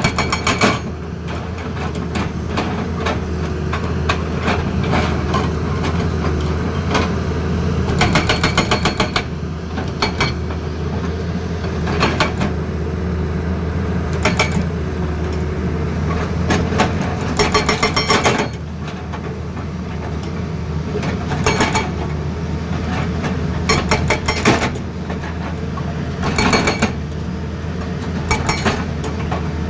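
Tata Hitachi Zaxis excavator's diesel engine running steadily while its hydraulic breaker hammers in short bursts of rapid blows, about ten bursts spread through the stretch.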